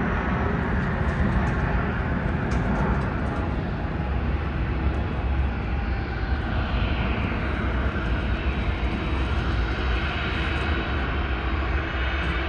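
Jet airliner departing under takeoff power: a steady rush of engine noise with a deep rumble underneath, easing slightly over the seconds.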